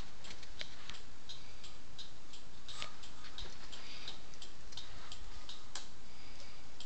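Motorcycle turn-signal flasher relay clicking on and off in time with the flashing LED blinkers: short sharp ticks at an even pace, about three a second.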